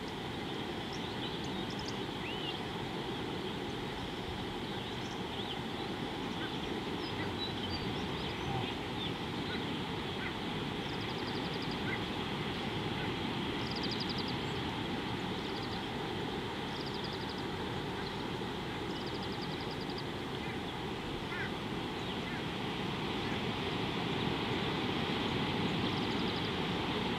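Steady outdoor rushing noise of wind and water by a river pool, with faint, short, high bird chirps and trills now and then.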